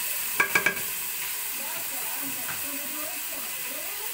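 Pork pieces sizzling and frying in oil in an aluminium pressure-cooker pot as they are browned, stirred with a wooden spatula. Three quick knocks of the spatula on the pot about half a second in, then a steady sizzle.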